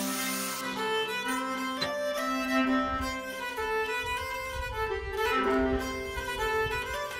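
Background music led by a violin. Under it, an angle grinder cutting a steel bar is heard for about the first half second, then stops abruptly.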